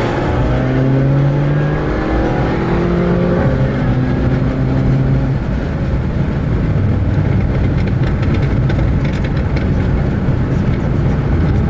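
Turbocharged MK7 Volkswagen GTI engine accelerating, rising in pitch and dropping at a gear change about three and a half seconds in, then running on steadily under load with road noise.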